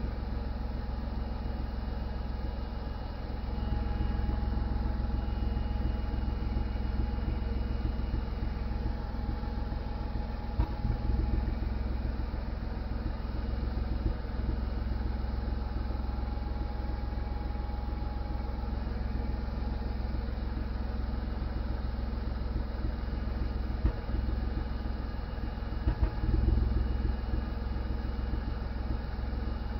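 Skoda Fabia engine running steadily at an even speed, with a few brief low knocks now and then. This is the engine noise the owner is recording.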